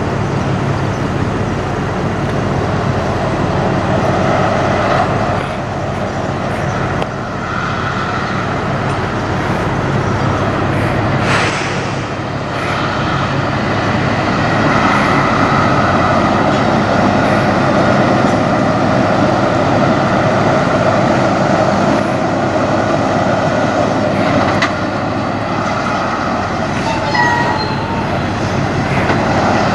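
Mack semi truck's diesel engine running steadily as the truck pulls a loaded flatbed trailer slowly through a turn. Near the end comes a brief high squeak.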